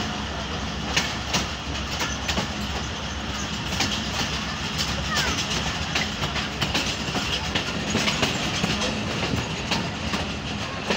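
Passenger train coach running slowly, heard from its open doorway: a steady rumble with irregular sharp clicks as the wheels pass over rail joints.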